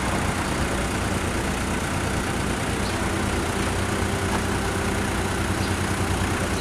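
A road vehicle's engine idling steadily at close range, a constant low hum with no change in speed.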